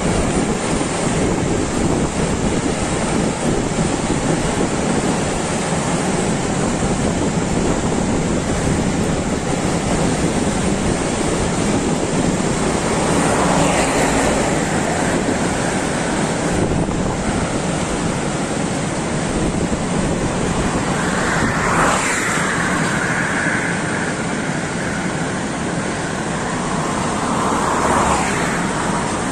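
Freight train of double-deck car-carrier wagons rolling past on a viaduct, a steady noisy rumble mixed with wind on the microphone. A few brief higher whines rise and fall from about halfway through.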